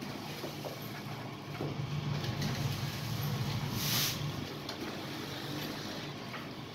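Vertical form-fill-seal salt sachet packing machine running: a steady motor hum with faint clicks, and a short hiss about four seconds in.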